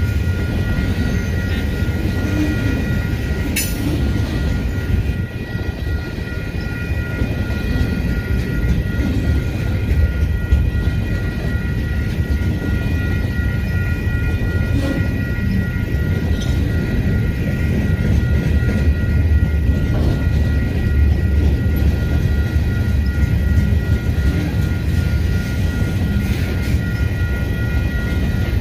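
Freight train of Herzog hopper cars rolling steadily past, wheels on the rails making a continuous low rumble. Two steady high-pitched tones run over it, and there is one sharp click about three and a half seconds in.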